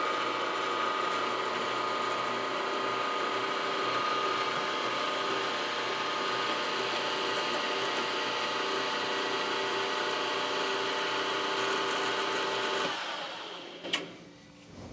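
Benchtop milling machine's spindle motor running steadily with a whine while a drill is fed down into the part by hand on the quill. About 13 seconds in the motor is switched off and spins down, followed by a sharp click.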